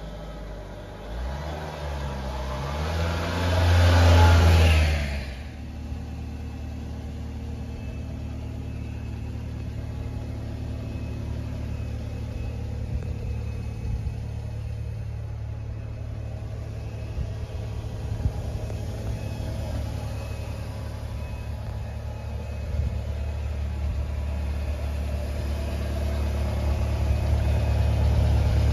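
A 1995 Subaru Sambar truck's 660 cc four-cylinder engine starts about a second in, revs up sharply for a couple of seconds, then settles into a steady idle that grows louder near the end.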